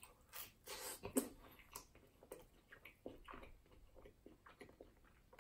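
Someone bites into a deep-fried pizza puff and then chews it with mouth sounds. A few louder bite sounds come in the first second or so, followed by faint, irregular chewing.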